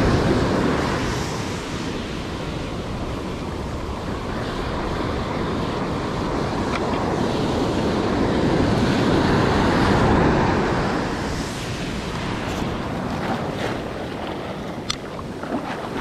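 Ocean surf breaking and washing up the shore, swelling loudest at the start and again about ten seconds in, with wind buffeting the microphone.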